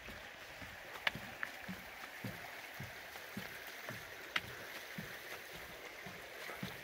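A hiker's footsteps on a wooden footbridge deck, an even walking pace of about two steps a second, over the steady faint rush of a creek. Two sharp clicks stand out, one about a second in and one past the middle.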